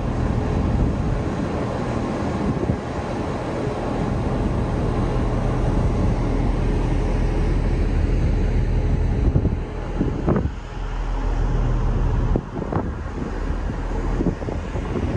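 Stadler GTW diesel commuter train running with a steady low rumble and wind noise on the microphone, with a few sharp knocks about ten and thirteen seconds in.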